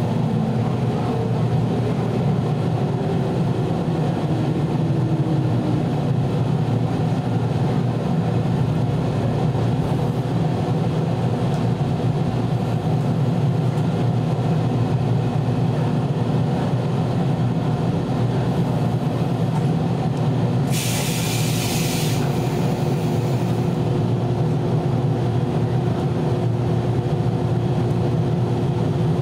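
Inside the leading motor car of a 413 series electric train, a steady running rumble. A gear whine falls in pitch over the first few seconds as the train slows. About two-thirds of the way in, a sharp hiss of air lasts just over a second.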